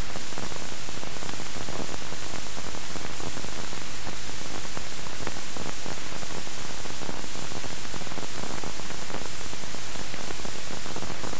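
Steady, even hiss with faint crackles, like static on an old film soundtrack.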